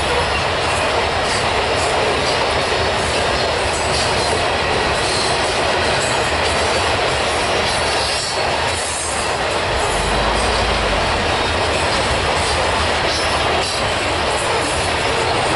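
Loaded covered hopper cars of a grain train rolling past at speed: a steady rush of steel wheels on rail, with irregular faint clicks.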